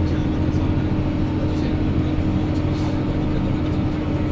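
Deutz-Fahr 6150 CShift tractor engine running steadily under load, heard from inside the cab, while it pulls a Lemken Rubin 9 disc harrow through wheat stubble.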